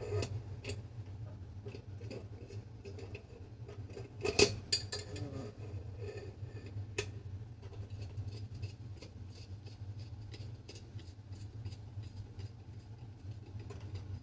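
Small metallic clicks and taps of a long screwdriver working the check valve back into a Petromax 829 kerosene lantern's pump, with one louder metal clack about four seconds in.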